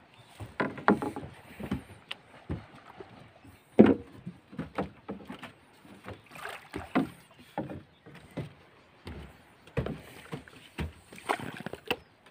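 Irregular knocks against wood and splashes of water, a string of short hits with no steady rhythm, like a small wooden boat being worked on the water.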